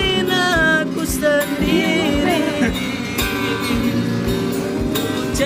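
A song: a voice singing a melody over strummed acoustic guitar, with a steady beat of about two low thumps a second.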